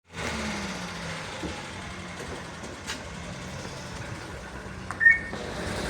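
Chevrolet Nexia 3 car engine idling steadily, with a brief high chirp about five seconds in.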